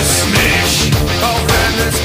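Loud heavy rock music with a steady, driving drum beat.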